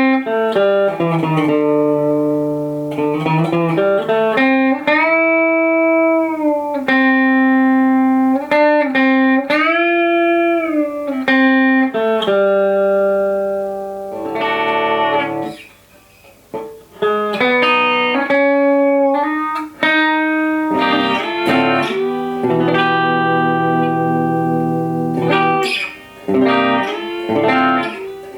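Replica Gibson Les Paul electric guitar with humbucker pickups, played through an amplifier. It plays lead lines of held notes with string bends, and pauses briefly about halfway through.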